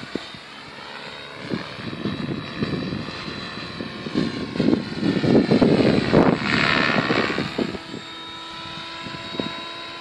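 Mikado Logo 600 SX electric radio-controlled helicopter flying: a steady motor whine and rotor whir that swells louder for a few seconds around the middle as the helicopter comes closer, then eases off.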